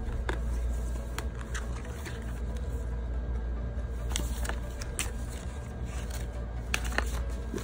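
Paper and cardboard watch packaging being handled: a scatter of light rustles, clicks and taps over a steady low hum.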